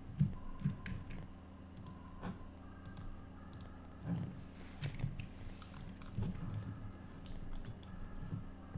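Computer keyboard and mouse clicks, short and irregular, over a low steady hum.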